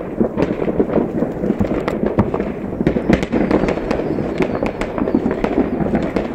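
Fireworks going off in a continuous barrage: many overlapping bangs and crackles, with a steady low rumble underneath.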